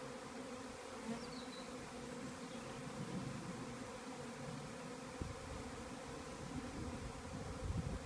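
A swarm of honey bees in flight, thousands of wings making a steady, even hum.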